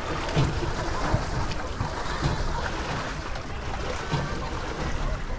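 Wind buffeting the microphone with a low rumble on an open boat crossing a lake, and faint voices now and then in the background.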